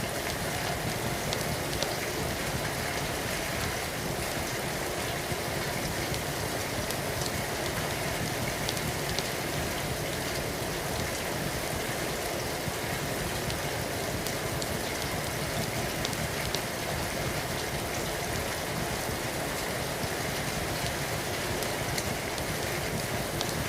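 Steady rain falling, an even hiss of drops, with faint scattered crackles of a wood fire in a fireplace.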